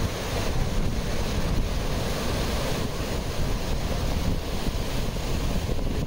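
Fast mountain stream rushing over rocks, a steady roar of water with wind buffeting the microphone.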